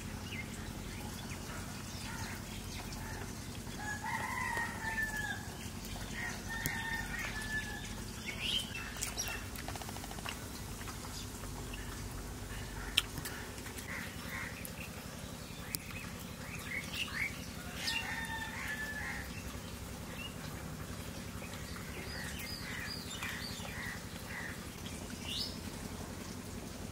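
Domestic chickens calling a few times, with small birds chirping over a faint steady background.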